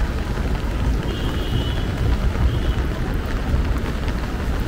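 Heavy rain pouring onto a wet city street: a steady hiss over a low rumble, with a faint high thin tone for a second or two about a second in.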